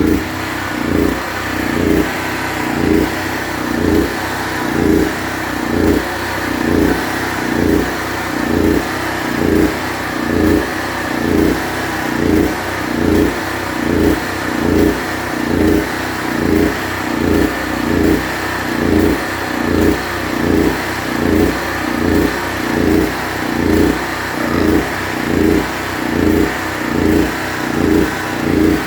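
Generac portable generator engine running steadily with its CO shutdown sensor unplugged, its level swelling and easing about once a second.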